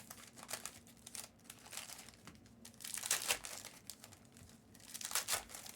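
Plastic trading-card pack wrappers crinkling and tearing as card packs are handled and opened, in irregular crackles, loudest about three seconds in and again near the end.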